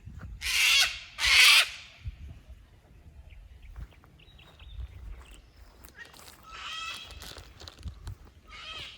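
Wild birds calling: two loud, harsh calls one after the other about half a second in, then softer, warbling calls later on.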